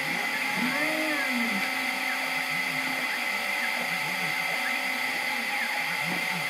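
Stepper motors of a CNC 3018 engraver whining as they drive the laser head through an engraving, the pitch sliding up and down with each short move, over a steady high whine.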